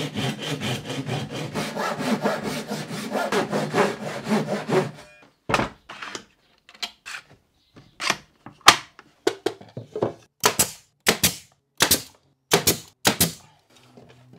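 Fine-tooth hand saw cutting through a pine strip with quick, even back-and-forth strokes for about five seconds. This is followed by a pneumatic nailer firing a series of sharp shots at irregular spacing as the strip is nailed in place.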